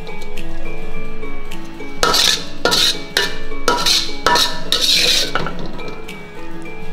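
Metal spatula scraping and knocking against a metal wok as fried noodles are scooped out onto a plate, a stroke every half-second to second, over background music.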